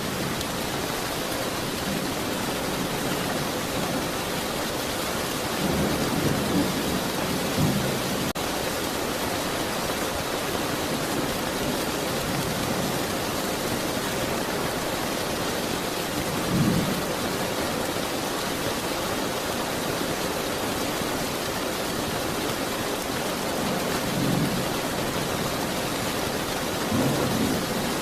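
Steady heavy rain, with low rumbles of thunder swelling up now and then, about five times.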